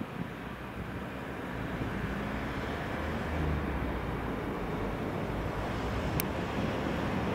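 Koleje Śląskie EN75 electric multiple unit (Stadler FLIRT) running in toward the platform, a low rumble and traction hum slowly growing louder as it nears, with wind on the microphone. A brief sharp click about six seconds in.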